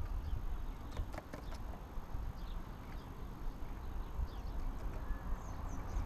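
Blackbird on a corrugated roof sheet: a quick run of sharp taps on the hard sheet about a second in, then a few faint, short, high chirps, over a low rumble.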